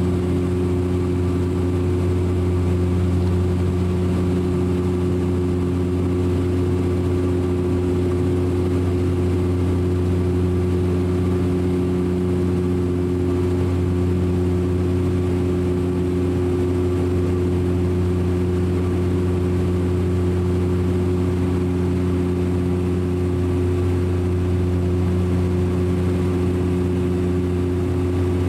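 Cabin sound of a Bombardier DHC8-Q400's Pratt & Whitney PW150A turboprops and six-bladed propellers in flight: a steady deep propeller drone with several low hum tones over rushing air noise, unchanging throughout.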